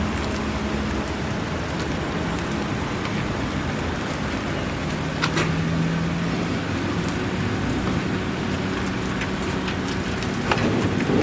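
Patties sizzling on a flat-top griddle: a steady hiss with a low hum underneath and a couple of sharp clicks, about five seconds in and again near the end.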